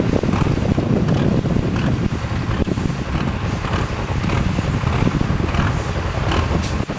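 Diesel engine of a truck-based pulling vehicle running loudly while it stands at the start line.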